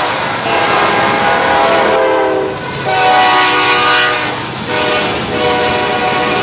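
Diesel freight locomotive horn sounding a multi-note chord in several long blasts, with short breaks about two and a half and four and a half seconds in. Under it runs the steady rumble and wheel noise of a passing freight train.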